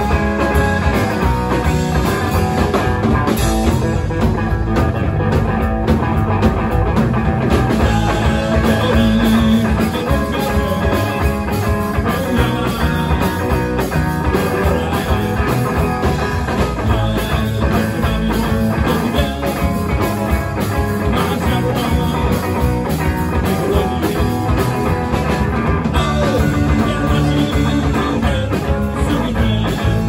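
Rock band playing a song, electric guitar over a drum kit.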